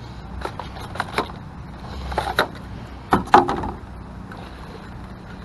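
Sharp plastic clicks and clacks of a new wiper blade being handled and readied for fitting, the loudest cluster about three seconds in, over a steady low hum.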